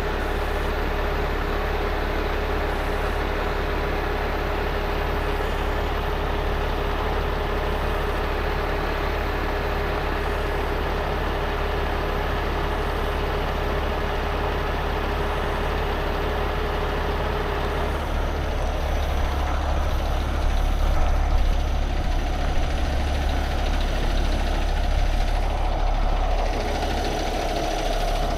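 Heavy diesel truck engine idling steadily, growing a little louder about two-thirds of the way through.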